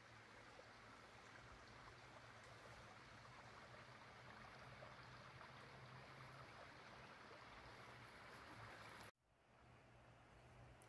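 Faint, steady outdoor ambience: an even rushing noise with a low hum underneath. It cuts out abruptly about nine seconds in and then comes back.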